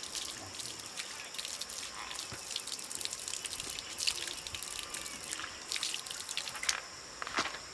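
Water trickling and dripping with small irregular splashes.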